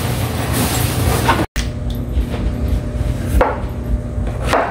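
Cleaver chopping meat on a plastic cutting board. The sound cuts out for a moment about a second and a half in, and then a knife knocks on the board a few times, about a second apart, as vegetables are sliced, over a low steady hum.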